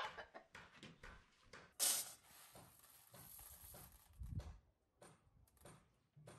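Sandalled footsteps and small handling noises on a dry dirt floor. A loud scraping rustle comes about two seconds in, a low thump around four seconds as a person sits down on a wooden stool, then faint clicks of dry beans being picked over in a woven tray.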